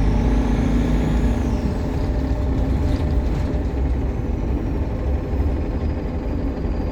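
Optare Solo bus engine running under way with a low rumble and a high turbocharger whine, which rises and falls about a second in, then sinks slowly as a fainter whistle.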